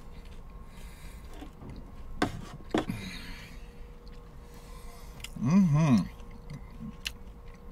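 Quiet eating in a car: a couple of soft clicks about two and three seconds in, then a short two-part hummed voice sound from the eater about five and a half seconds in.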